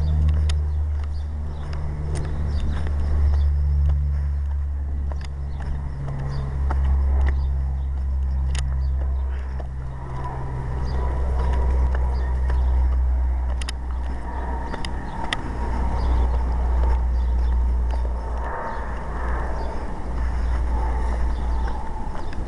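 Wind buffeting the camera microphone in a low, surging rumble, with scattered clicks and scuffs of footsteps over loose lava rock.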